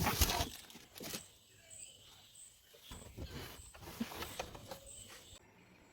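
Faint rustling and a few sharp knocks, as of something being handled. The loudest bursts come at the very start and about a second in, and a faint high chirp repeats in the background.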